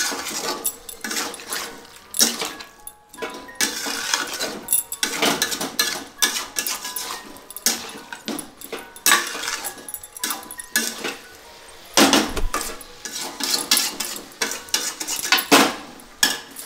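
Metal spatula scraping and knocking against an aluminium kadai while vegetables are stirred in it, in quick, irregular strokes.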